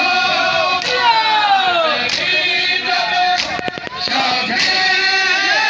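Voices chanting a noha, with the crowd's matam: sharp slaps of hands on chests about every second and a quarter, a few in quick succession near the middle.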